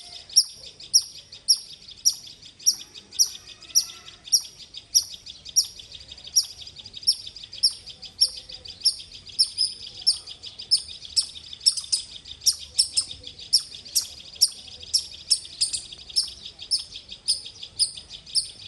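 A squirrel calling: a steady run of sharp, high-pitched chirps, about two a second, over a continuous high buzzing trill.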